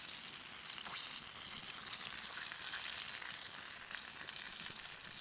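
Breaded northern pike fillets sizzling and crackling in hot oil in a pan over a campfire, a steady hiss with many small pops.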